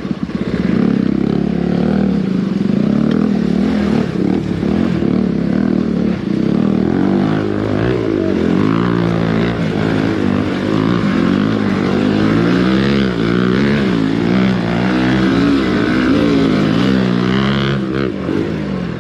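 Hero Xpulse 200's single-cylinder four-stroke engine running under load off-road, fairly steady at first, then its revs rising and falling over and over from about seven seconds in as the throttle is worked.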